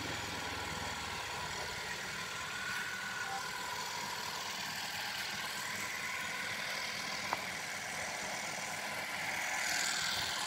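A steady background engine hum, with one faint click about seven seconds in.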